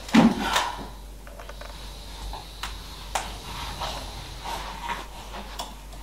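A wardrobe door pulled open with a short thump at the start, then scattered light clicks and knocks as clothes on hangers are moved along the rail.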